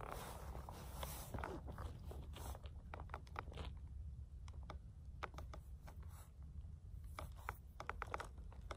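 Faint, scattered small clicks and scrapes of a rifle being handled and shouldered on a shooting mat, over a low steady rumble.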